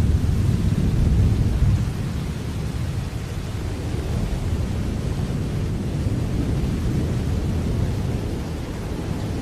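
Steady rain with a deep, low rumble of distant thunder. The rumble is strongest in the first couple of seconds, then eases to an even level.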